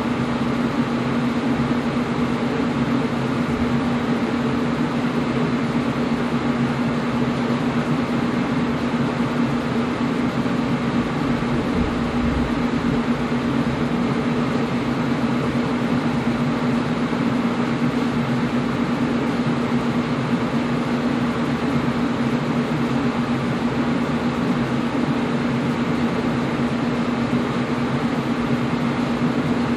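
Air conditioner running steadily: an even rush of air with a constant low hum from its motor.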